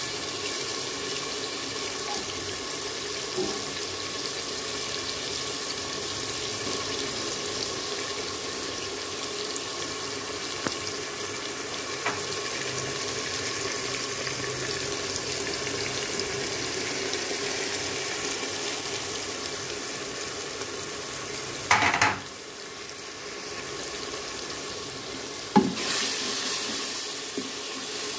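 Masala frying in oil in a metal pot, a steady sizzle with a faint steady hum underneath. About three quarters of the way through there is a short louder burst, then a sharp knock, and the sizzle grows brighter for a moment.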